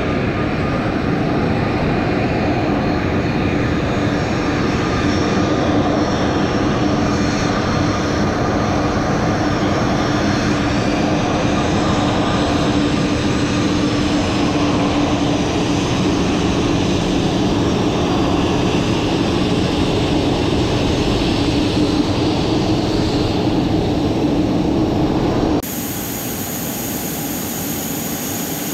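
Steady whine and rumble of jet airliners on the apron, with several held whining tones. About 25 seconds in it cuts to a quieter jet whine with higher, thinner tones.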